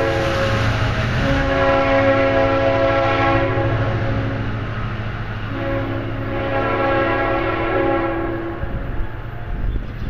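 Multi-note horn of an NJ Transit Comet IV cab car leading a train, sounded as a horn show: one blast ends just after the start, then come two long blasts of about three seconds each. Under them runs the steady rumble of the passing train, fading near the end as it moves away.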